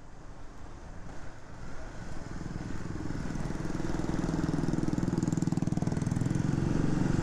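A motor vehicle's engine running with fast, even firing pulses over road and wind noise, growing steadily louder.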